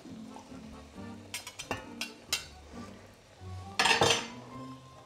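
Metal kitchen utensils clinking against cookware: a few sharp clinks, then a louder scraping clatter near the end.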